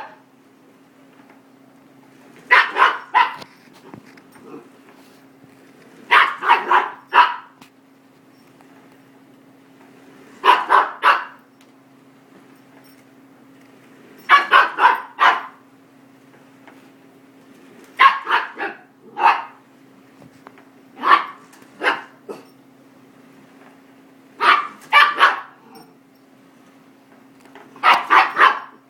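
Miniature goldendoodle puppy barking in repeated bursts of two to four barks, about every three to four seconds, over a faint steady hum.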